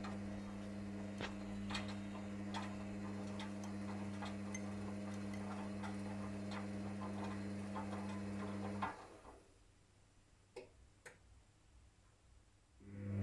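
Whirlpool FL 5065 front-loading washing machine's drum motor turning the drum slowly to balance the load before spin: a steady hum with many light ticks and clicks. About nine seconds in the motor stops, leaving near quiet with a few clicks, and it starts up again at the very end.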